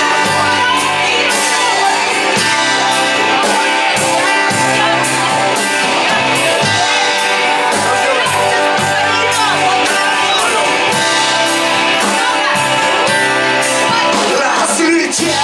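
Rock band music with guitar over a steady beat, a passage of the song without recognised sung words.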